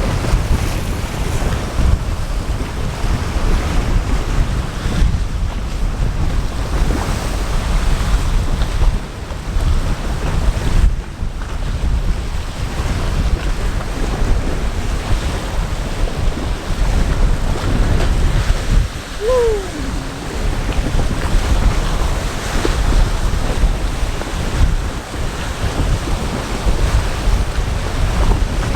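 Strong wind buffeting the microphone over choppy waves splashing against the shore, a steady rushing roar heaviest in the low end.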